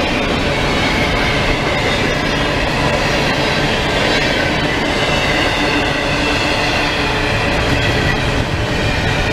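Double-stack intermodal freight train's container well cars rolling past close by: a steady rumble of steel wheels on the rails, with a thin high wheel squeal wavering in and out.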